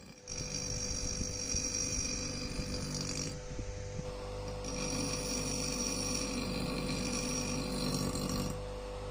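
An electric power tool's motor running steadily with a rough, grinding rumble, easing off briefly about three and a half seconds in and then running on.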